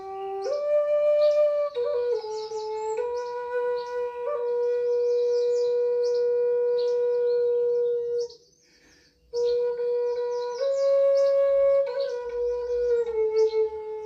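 Native American-style wooden flute playing a slow melody of long held notes that step up and down between a few pitches. The melody breaks off for about a second a little past halfway, then resumes.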